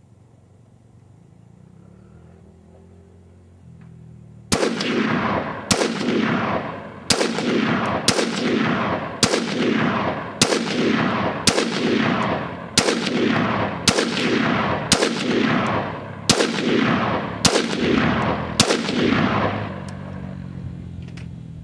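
Short-barrelled AR-15 rifle fired in slow semi-automatic fire during barrel break-in: about thirteen shots roughly a second apart, starting a few seconds in. Each shot is followed by a long echo dying away.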